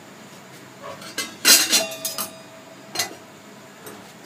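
Metal kitchenware clinking: a quick cluster of knocks and clinks about a second in, one ringing briefly, then a single clink about three seconds in.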